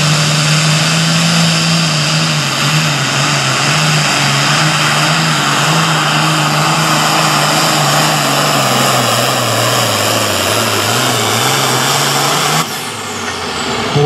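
International super farm pulling tractor's turbocharged diesel running flat out under the load of the pulling sled. Its note sinks steadily in pitch as the engine bogs down against the building weight. The loud run drops away abruptly near the end.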